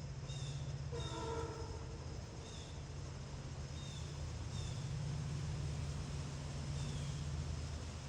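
A small bird chirping short downward notes again and again, roughly once a second, over a steady low hum. About a second in comes one short, harsh call with several stacked tones, such as a crow's caw.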